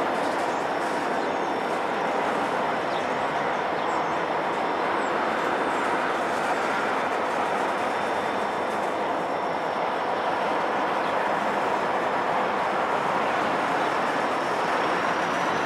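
Montana Rail Link diesel locomotives passing slowly, their engines running with a steady, even rumble mixed with wheel and rail noise.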